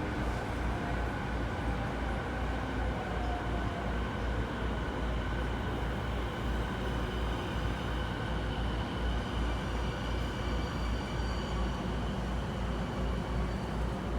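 Running sound inside a JR East E217 series electric train car: a steady rumble of wheels on rail and car body. Thin high motor tones come in about halfway through.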